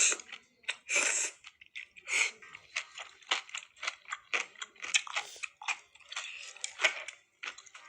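Close-miked chewing and crunching of food: a quick, irregular run of crisp bites and wet mouth sounds.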